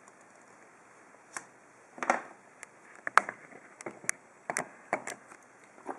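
Irregular small clicks and taps from the parts of a gutted ASSA pin-tumbler cylinder being handled: about a dozen sharp ticks, starting about a second and a half in.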